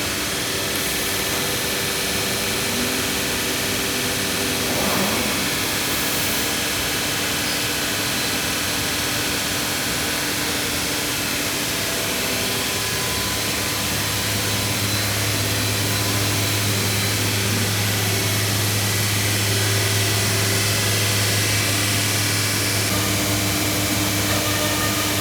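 Anderson Stratos Pro CNC router running a program: a steady machine noise with several steady tones, joined by a strong low hum about halfway through.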